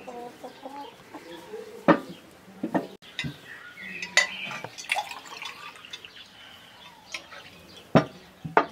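Hens clucking, with several sharp clinks of clay bowls and glassware being set down on a table.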